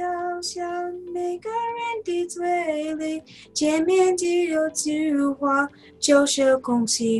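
A girl singing a song in Mandarin solo, in phrases of held notes with short breaths between, one about three seconds in.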